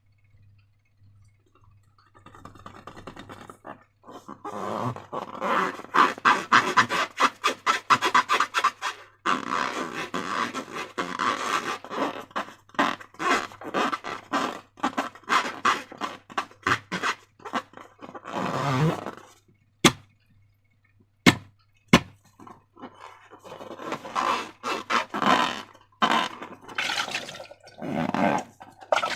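Slime being squished and stretched by hand, making rapid wet crackling and squelching clicks in long runs. A few single sharp clicks come about two-thirds of the way through.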